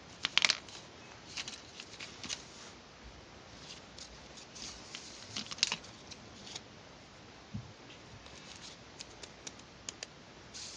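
Hands working small craft materials: scattered short clicks, snips and rustles, with a loud cluster of sharp clicks about half a second in and another near the middle.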